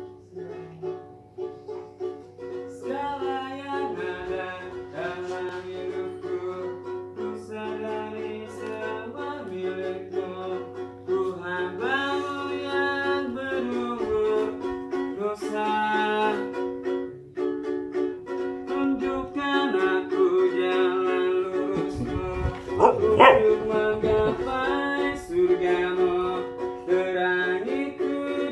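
Buskers' song: a ukulele strummed in steady chords with singing. A dog barks briefly toward the end.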